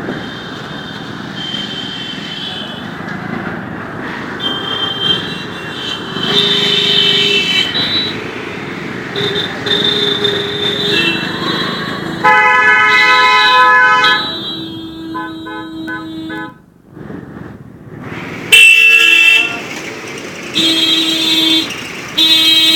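Vehicle horns honking one after another in dense street traffic, several different horns of different pitches, some held for a second or two and one tapped in short quick beeps, over the steady noise of engines and traffic. The loudest blasts come about halfway through and again near the end.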